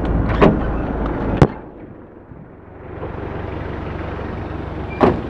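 A vehicle engine idles with a steady low rumble, then stops after a sharp click about a second and a half in. Steady outdoor noise follows, with another sharp click or knock near the end, like the vehicle's door.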